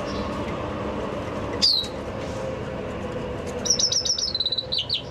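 Common chaffinch calling and singing: one sharp call sweeping down in pitch, then about two seconds later a short song phrase of rapidly repeated high notes that step down and end in a quick flourish.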